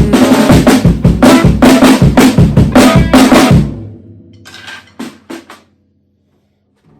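Drum kit played along with the song's backing track, with rapid kick and snare hits, until the music stops about four seconds in. A few faint hits follow, then silence.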